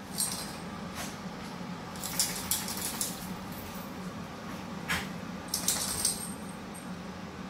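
Two small dogs playing on a flagstone floor: short bursts of clicking and jingling from claws and collar tags, a few times, over a steady low hum.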